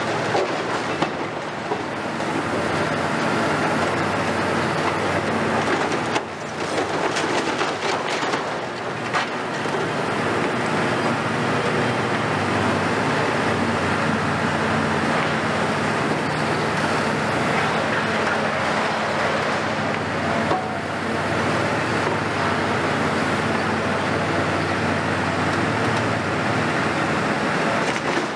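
Diesel engine and hydraulics of a KMC 400 long-front demolition excavator, built on a Hitachi ZX350, working steadily under load, with scraping and clattering of steel roof sheeting and trusses as its attachment tears at the roof structure.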